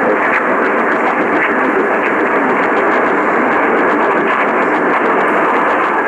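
Portable AM radio tuned to 1140 AM playing mostly static through its small speaker: a steady, band-limited hiss with light crackling.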